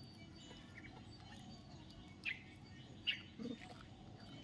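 Two short high chirps a little under a second apart, each falling in pitch, followed by a brief lower squeak, over a faint outdoor background.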